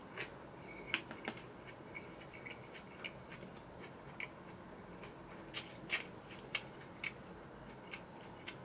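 Close-up chewing of a mouthful of food: soft, irregular mouth clicks and smacks over a faint steady hiss.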